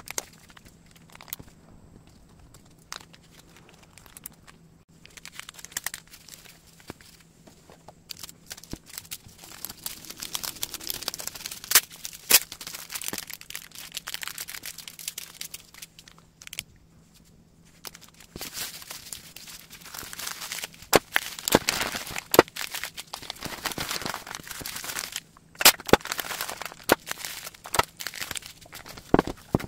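Clear plastic jewelry bags and bubble wrap being handled and folded for packing: crinkling and crackling with many sharp clicks. It is sparse at first and gets busier about nine seconds in.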